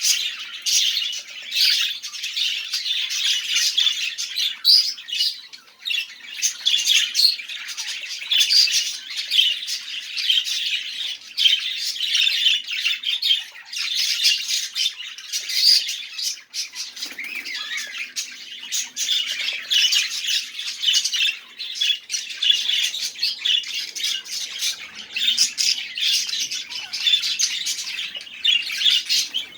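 Budgerigars warbling and chattering: a steady stream of quick, high chirps and squawks.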